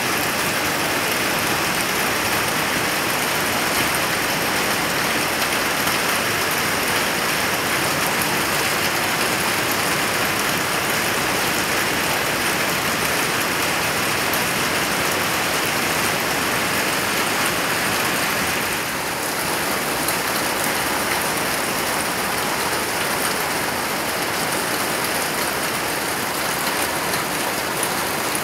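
Heavy rain falling steadily, a dense even hiss that dips slightly about two-thirds of the way through.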